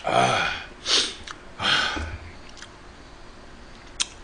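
A man's breath: three short, forceful, breathy puffs through the nose and mouth in quick succession over the first two seconds. A light click near the end.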